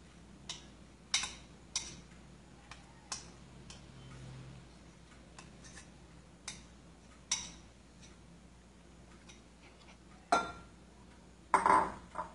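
Kitchen utensil clinking against a glass bowl as a thick mixture is scraped out into a glass baking dish: irregular sharp clicks a second or so apart, with a couple of louder knocks near the end.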